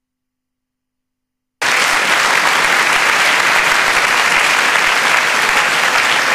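Silence, then the applause of a large seated audience starting abruptly about a second and a half in and carrying on steadily and loudly.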